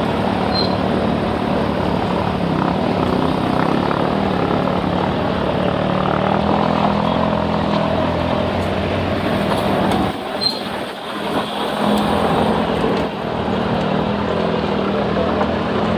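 Car driving slowly along a rough dirt road: steady engine and road noise, with wind on a microphone held out of the window. The level dips briefly about ten seconds in.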